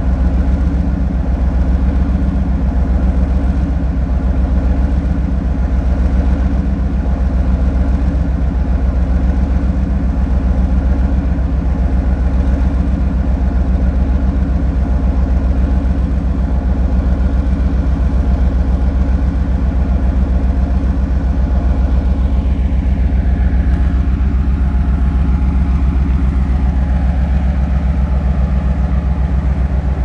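Soviet M62 diesel locomotive's two-stroke V12 diesel engine idling steadily, with a fast, even beat.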